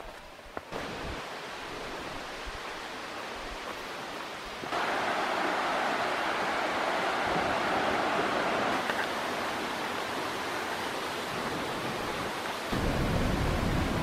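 Steady rushing of a waterfall and river, a dense hiss that jumps louder about five seconds in, with a deeper rumble joining near the end.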